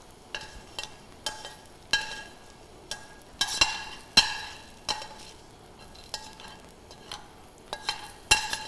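Metal tongs clinking and scraping against a stainless steel frying pan as chips are stirred, a dozen or so irregular ringing taps. Under them is a faint steady sizzle of the chips frying in hot oil.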